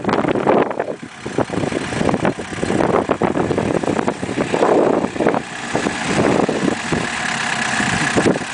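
Turbocharged diesel engine of a Suzuki Vitara with an Acme diesel conversion running, its turbo whistle showing as a thin steady tone over the second half.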